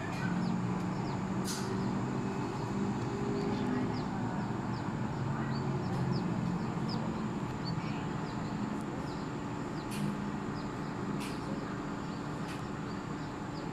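Distant city traffic rumbling steadily, with small birds chirping over it in short, repeated high notes.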